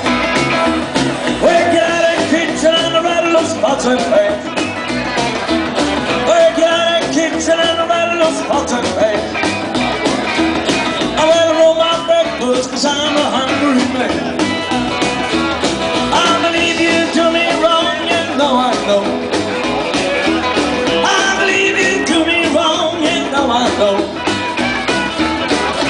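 Rockabilly band playing live: upright bass, acoustic and electric guitars and drums, with a steady beat.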